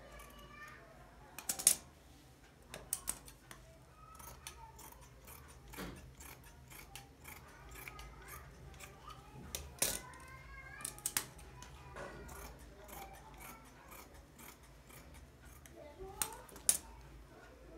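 Tailor's scissors cutting through cloth: irregular sharp snips as the blades close, the loudest a few seconds apart.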